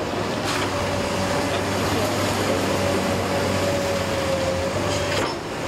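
Komatsu PC210 LCi excavator's diesel engine running steadily under working load, as the boom and arm are driven fully stretched along a slope. A thin steady whine sits over the engine and cuts off a little after five seconds in.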